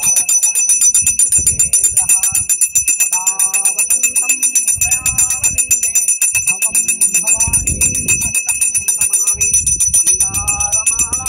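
Brass puja hand bell rung rapidly and continuously for the aarti, a steady high ringing, with a voice chanting over it.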